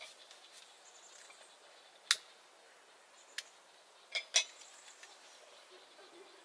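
A few sharp clicks and clinks of small hard objects being handled: one about two seconds in, a lighter one a second later, then a quick pair near the four-second mark, over a faint steady hiss.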